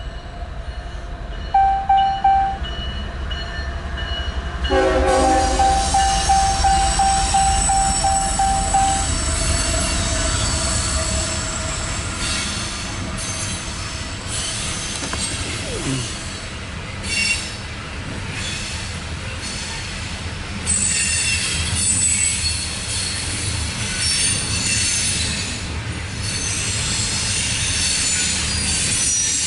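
Loaded CSX coal train passing with a steady diesel locomotive rumble. Its horn gives three short toots about two seconds in, then a longer blast of about four seconds from around five seconds in. The loaded coal cars then roll by with wheel squeal and clatter.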